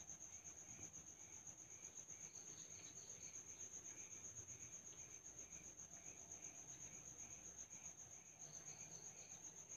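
Faint insect chorus, crickets trilling: a steady high-pitched trill throughout, with a softer chirp repeating about twice a second beneath it.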